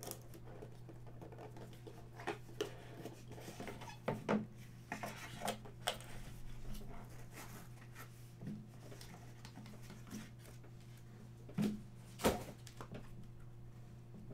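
Hands handling trading cards, card packaging and a rigid plastic card holder: scattered light clicks, taps and rustles, with two sharper clicks about twelve seconds in, over a steady low hum.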